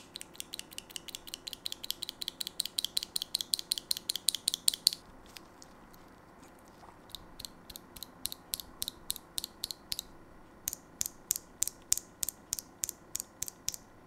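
A single Gateron Optical Yellow linear keyboard switch pressed rapidly and repeatedly by finger, giving sharp plastic clacks about six a second. The clacks are loud at first, fainter through the middle, where the spray-lubed switch has no spring noise, and loud again near the end from an unlubed stock switch.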